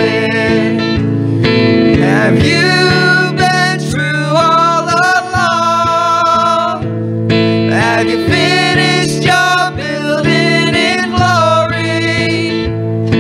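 A woman sings a gospel song into a microphone, holding notes with vibrato, over electric guitar accompaniment.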